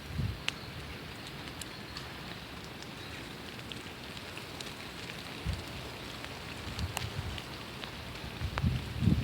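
Steady rain falling on a surface, with scattered sharp drop ticks, and a few short low rumbles, the strongest near the end.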